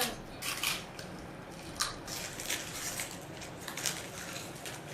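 Someone chewing and crunching sour potato chips: irregular short crunches and wet mouth sounds.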